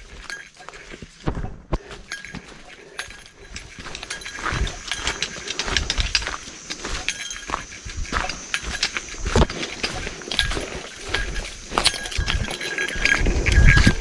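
Footsteps knocking on a wooden boardwalk trail, an irregular run of clicks and knocks that gets busier about four seconds in, with a heavier low thump near the end.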